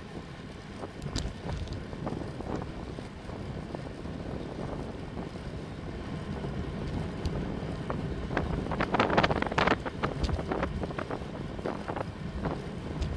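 Wind buffeting the microphone of a handlebar-mounted bike camera at about 38 km/h, over a steady low rumble of tyres on the road. About nine seconds in, a cluster of sharp knocks and rattles rises briefly above it.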